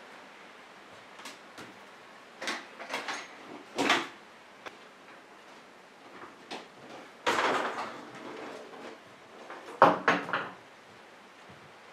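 Piper Super Cub's lower engine cowling being worked loose and pulled off by hand: scattered clunks and rattles, a longer scraping rattle past the middle, and the sharpest knocks near the end.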